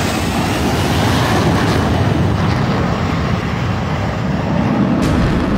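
Saab Gripen fighter jet taking off with its afterburner lit: a loud, steady jet engine roar.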